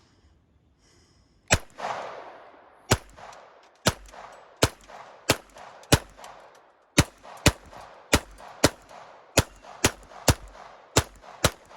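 Taurus TX22 .22 LR semi-automatic pistol firing about fifteen shots at an uneven pace, half a second to a second apart, each crack followed by a short echo: a magazine being emptied.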